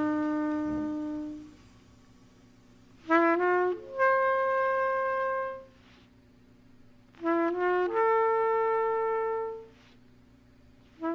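Solo trumpet playing a repeated phrase: a few quick notes stepping up into a long held note, with short pauses between phrases. It plays two full phrases, and a new one begins near the end, over a faint low hum.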